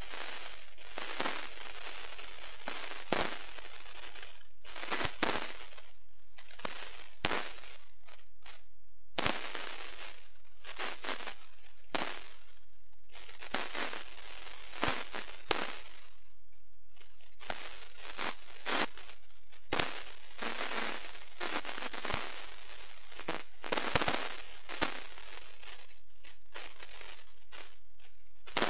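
Aerial fireworks going off in an irregular string of sharp bangs, each followed by crackling, every second or two.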